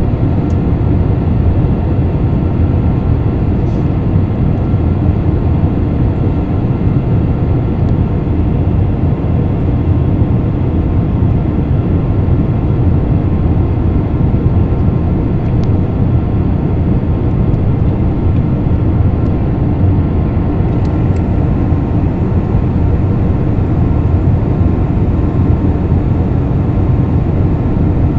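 Steady cabin drone of an Airbus A320-family jet airliner in flight: engine and airflow noise heard from a window seat, a dense low rumble with faint steady whine tones above it.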